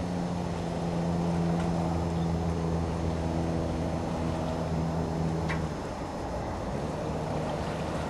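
Steady low drone of a motor engine holding one pitch, easing off a little about three-quarters of the way through.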